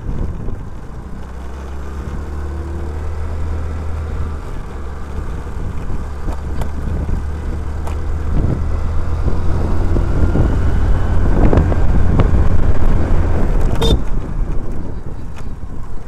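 Motor scooter riding along a narrow road, its engine running under a steady low rumble of wind on the microphone that grows louder about two thirds of the way through and then eases. A single sharp click near the end.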